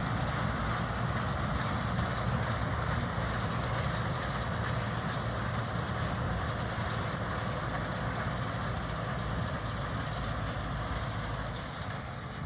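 Tractor and round baler running at work, a steady mechanical drone that eases a little near the end.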